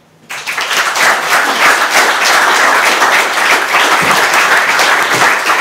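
Audience applauding: many people clapping, breaking out suddenly and staying loud and steady.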